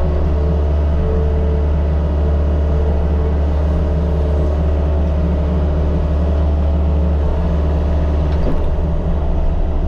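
Mini excavator's diesel engine running steadily with a strong low hum. A brief knock comes about eight and a half seconds in, and the engine note shifts after it.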